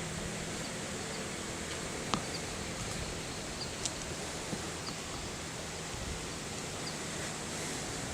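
Steady outdoor ambient hiss, with one sharp click about two seconds in and a few faint, short, high chirps.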